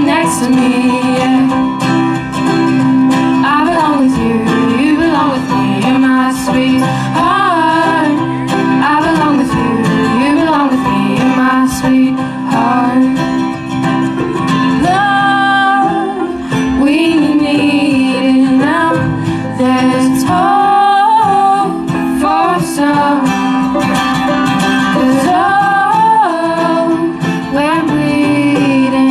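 Acoustic string band playing live: guitar under a sliding melody line, with women singing.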